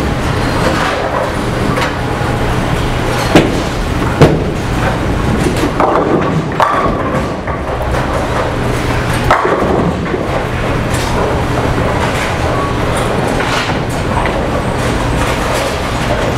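Bowling alley in play: bowling balls rolling down the lanes over a steady low hum, with the sharp crash of pins being struck about three and four seconds in and again around nine seconds.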